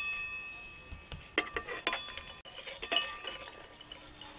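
Metal slotted spatula clinking against a steel karai as fried battered egg pieces are lifted out of the oil: a few sharp, briefly ringing clinks, around a second and a half, two and three seconds in.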